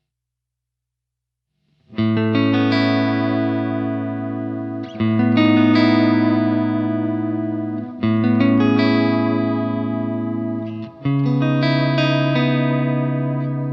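Electric guitar played through a Walrus Audio ARP-87 delay pedal: after about two seconds of silence, four chords are struck about three seconds apart and each is left to ring out.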